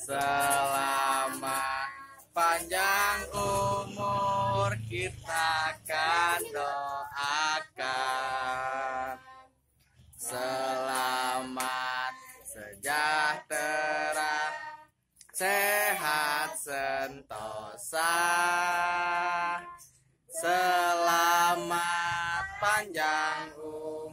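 Voices singing a birthday song, in sung phrases broken by short pauses.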